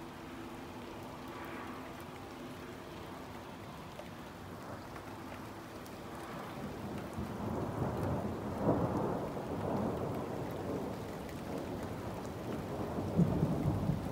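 Night thunderstorm: steady rain with thunder rumbling, swelling about halfway through, and a sudden louder peak near the end.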